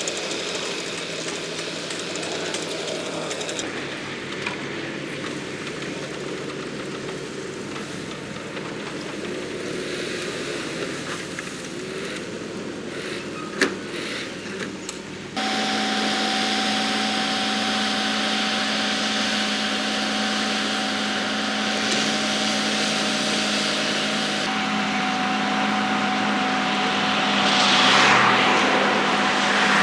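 Diesel engine of a working excavator. For the first half it runs at a varying pitch, with one sharp knock. About halfway there is a sudden change to a steadier engine sound with a constant whine, and it grows louder and noisier near the end.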